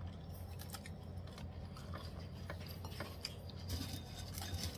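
Chewing food close to the microphone, with scattered small crunches and clicks, over a steady low hum.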